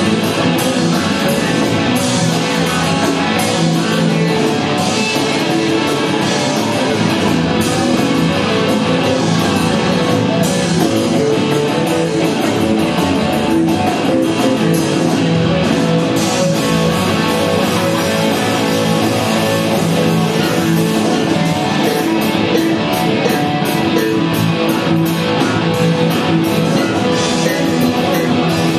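Live rock band playing loudly: electric guitars over a drum kit, the cymbal hits coming thicker and faster in the last few seconds.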